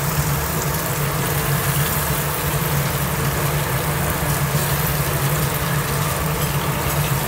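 Fish pieces and onions frying in a pan, sizzling steadily as a wooden spatula turns them, over a steady low mechanical hum.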